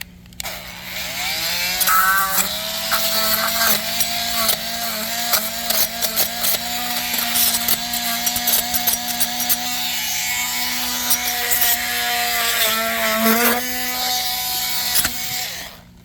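Oscillating multi-tool spinning up and running, its blade rasping as it cuts away excess hardened waterfall foam. It runs steadily, then shuts off near the end.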